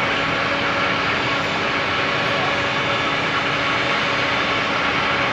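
Jet airliner engines running at idle, a steady whine of several held tones over an even rushing noise that does not change.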